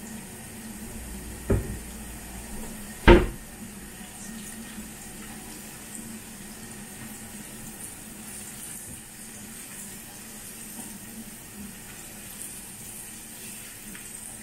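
Garlic sizzling steadily in oil in a frying pan while a spatula stirs it. Two sharp knocks come about one and a half and three seconds in, the second much louder.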